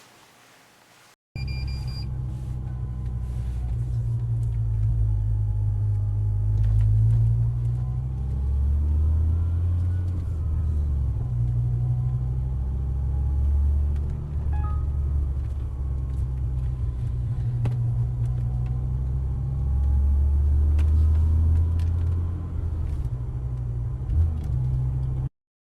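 G-Power BMW M5 Touring's supercharged V10 driving along: a steady low rumble whose pitch shifts up and down with speed, with a faint whine rising and falling above it. It starts and stops abruptly.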